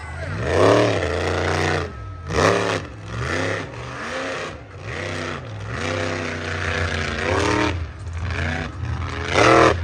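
Monster truck engine revving hard again and again, its pitch swinging up and down about six times, as the truck spins and drives through the dirt.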